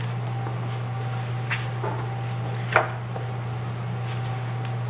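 Sheets of 12x12 scrapbook paper handled on a tabletop: a few soft rustles and taps, the sharpest about three seconds in, over a steady low hum.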